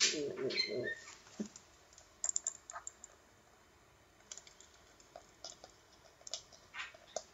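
Rubber gas mask handled close to the microphone: a brief squeaky, wavering sound in the first second, then scattered light clicks and taps as the mask is held to the face and lowered.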